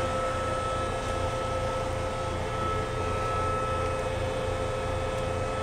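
Steady hum of a stationary Mizuma Railway electric train's air-conditioning and auxiliary equipment, with a low drone and a thin, constant high whine.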